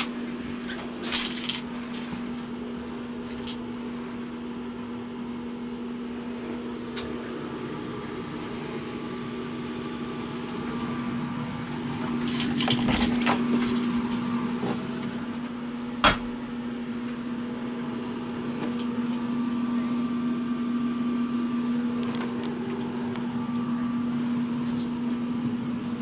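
A steady low hum of a running machine at one pitch, with a few sharp knocks and clicks near the start, about halfway through, and one louder single knock shortly after.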